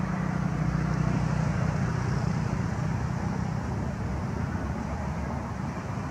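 Steady low rumble of a motor vehicle engine running, swelling a little over the first two seconds and then easing, with a faint high hum above it.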